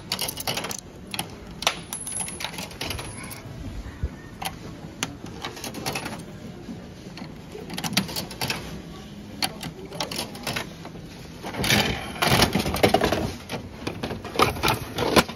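100-yen coins dropped one by one into a gashapon capsule machine's coin slot, each a sharp click. About twelve seconds in, the machine's crank handle is turned in a dense run of ratcheting clicks. A few clacks from the capsule chute come near the end.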